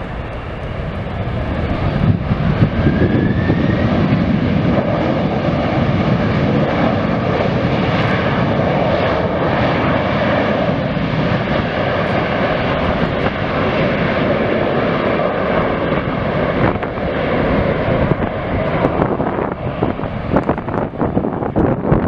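Airplane engines running as an aircraft passes, growing louder over the first few seconds and then holding at a steady level. Wind buffets the microphone near the end.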